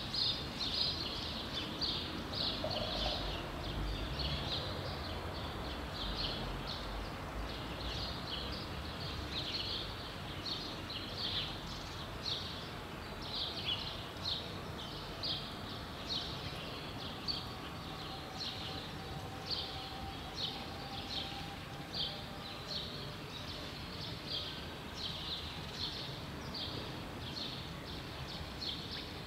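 Small birds chirping, short high chirps about once or twice a second, over steady city street noise. A low rumble comes a few seconds in, and a faint steady hum near the middle.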